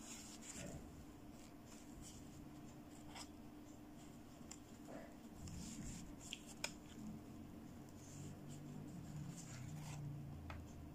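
Faint rustling and light clicks as fingers handle a plastic fashion doll in a cloth dress, with one sharper click about two-thirds of the way through. A faint steady low hum runs underneath.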